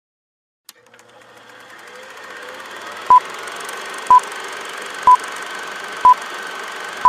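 Film-leader countdown sound effect: a projector-like hiss and crackle fading in, then a short high beep about once a second from about three seconds in, marking the countdown numbers.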